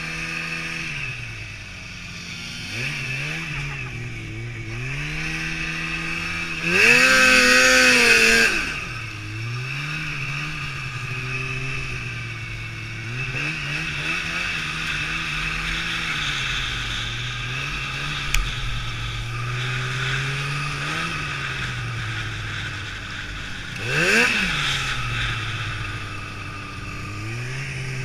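Two-stroke snowmobile engine revving up and down over and over as the sled is ridden across snow drifts. It surges much louder twice, for about two seconds around seven seconds in and briefly near the end.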